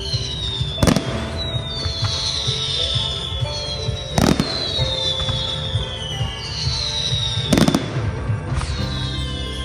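Display fireworks going off: a string of whistling shells, each a falling whistle lasting about a second, with three sharp bangs of bursting shells about three seconds apart.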